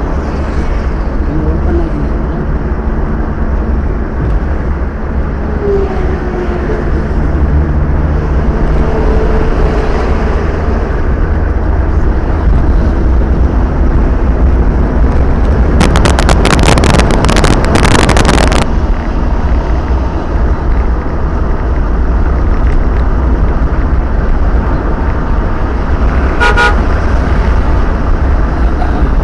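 Steady road and engine rumble heard inside a car's cabin at highway speed. About halfway through comes a crackling burst of some two seconds, and near the end a vehicle horn toots once, briefly.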